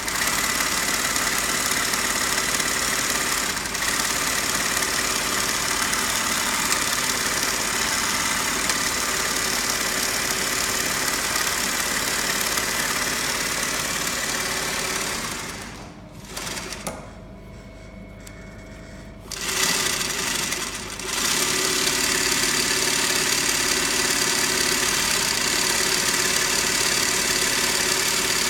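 Adler 69 arm industrial sewing machine running steadily at speed. It stops for about four seconds in the middle, then starts again and runs on.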